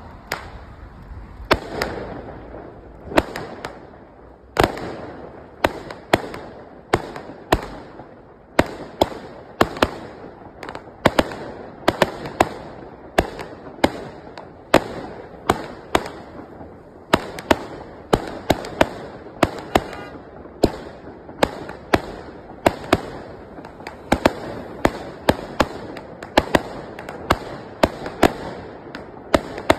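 A 49-shot firework cake firing: a long run of sharp bangs, about one every second or so at first and coming faster, several a second, toward the end, with a noisy crackle filling the gaps between them.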